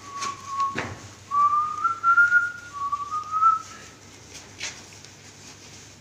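A person whistling a few short phrases of a tune, with a light knock about a second in.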